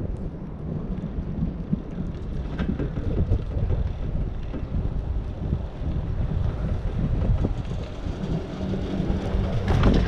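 Wind on the microphone over the steady low rumble of a high-speed six-pack chairlift in motion, with a louder surge near the end.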